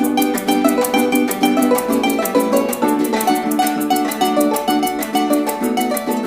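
Instrumental music: a fast plucked-string melody over a quick, steady beat.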